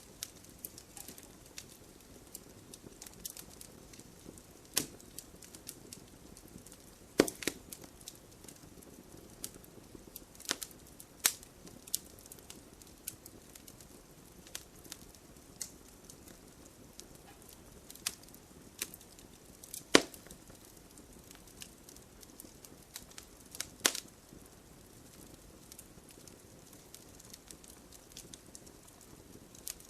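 Wood fire crackling: irregular sharp pops and snaps over a soft hiss of flame, with a few much louder pops among them.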